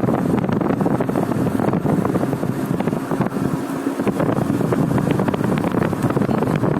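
Wind buffeting the microphone, a steady rushing rumble.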